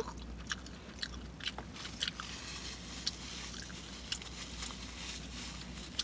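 A person chewing a mouthful of breakfast crepe close to the microphone: irregular soft mouth clicks and smacks.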